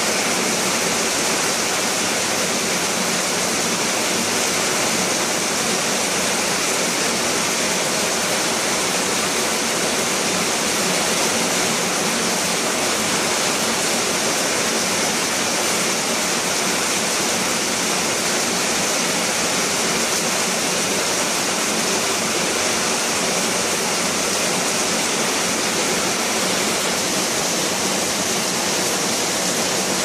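Rain falling steadily on leaves and ground, a dense, even hiss with no let-up.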